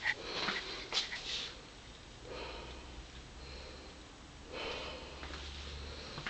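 Soft breathy sniffs in a few short spells about two seconds apart.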